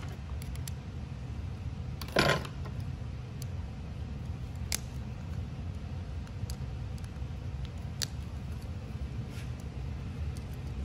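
Small metal clicks and taps of hand tools and parts on an FX Wildcat MK3 air rifle's action while it is being taken apart, over a steady low hum. A brief louder rattle comes about two seconds in.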